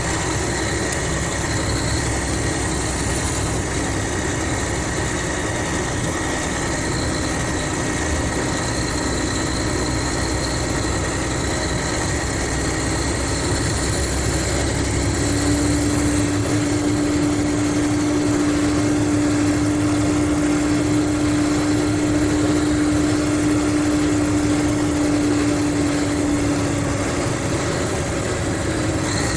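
Mercedes-Benz O500RSD coach's diesel engine running with a steady drone. About halfway through, a strong steady whine joins it and fades out near the end.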